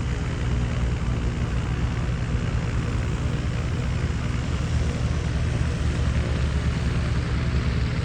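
Propeller airplane's engine running steadily, a constant low hum with noise above it.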